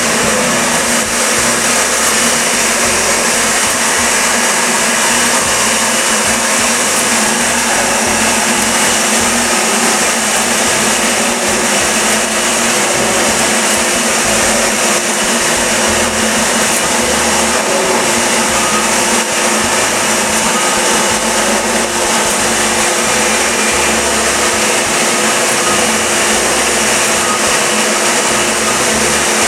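Weeke Optimat BHC-350 CNC machining center running a program cycle with its vacuum hold-down pump on: a loud, steady whirring motor noise with constant humming tones.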